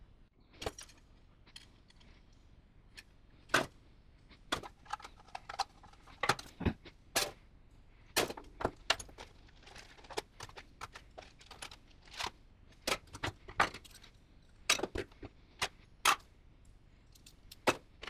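Small metal parts, screws and hand tools clicking and clattering as they are handled and set down on a workbench, in irregular sharp knocks with a few louder ones.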